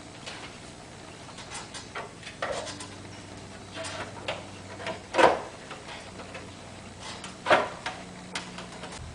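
Plastic housing parts of a Bose stereo's head unit being handled and fitted back together: scattered clicks and light ticks, with three louder knocks spread through it.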